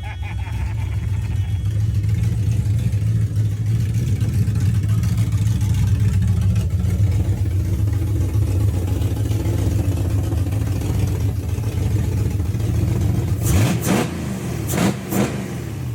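Toyota 1UZ-FE V8 running on open headers with short turn-down tips and no muffler: a loud, steady low rumble, then two quick throttle blips near the end, each a rising rev.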